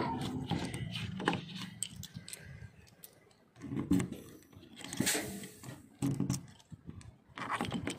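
Key being worked into the exterior door lock of an Iveco Crossway bus and turned to lock it: a series of sharp metallic clicks and scrapes, with the other keys on the ring jangling. A low hum comes and goes a few times in between.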